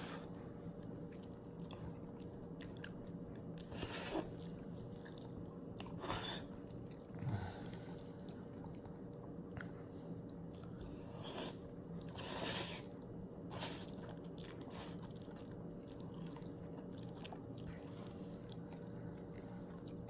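A person chewing a mouthful of Samyang spicy cheese instant noodles, with a handful of louder bites and mouth noises about 4, 6 and 11 to 14 seconds in, over a steady faint hum.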